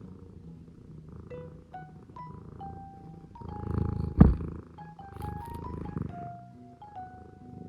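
Scottish Fold cat purring close up in rhythmic pulses for a few seconds from about the middle, with one sharp knock at its loudest point, over light mallet-percussion background music.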